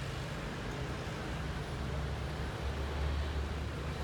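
Steady low background rumble with no distinct events, swelling briefly about three seconds in.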